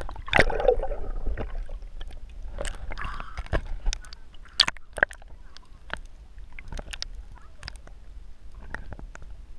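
Water sloshing and gurgling around a camera held at the surface, dipping in and out of the water, with scattered sharp clicks and knocks over a steady low rumble. It is loudest in the first second.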